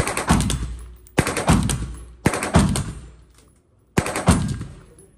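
AR-15-style rifle fired in four quick strings of several rapid shots each, about a second or more apart, each string ringing out with echo from the indoor range.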